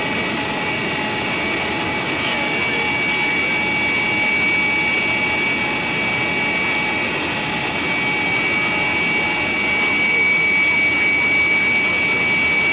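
Steady in-flight noise of an aircraft's turbine engine heard from inside the cabin: an unbroken rush with several high steady whining tones over it, getting slightly louder about ten seconds in.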